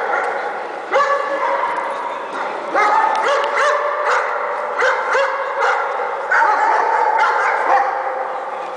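Caucasian Shepherd Dogs barking and yelping repeatedly, several calls overlapping, each sharp onset trailing off in the echo of a large hall.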